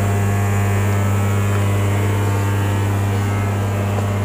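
A steady low hum, like a motor or fan running, holding one deep pitch without change.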